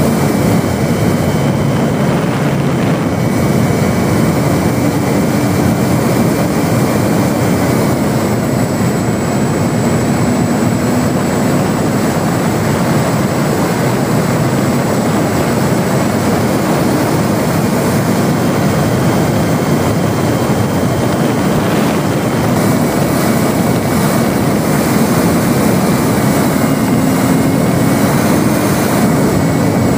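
Steady rush of wind over a ParkZone RC Spitfire's onboard camera in flight. The model's electric motor and propeller hum underneath, their pitch shifting now and then with the throttle.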